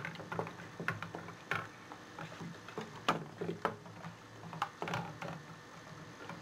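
Irregular light clicks and knocks as raw chicken breasts are coated in egg white in a dish, with a faint steady low hum underneath.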